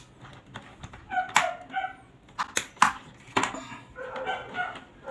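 A dog whining in short, high calls, with several sharp clicks among them.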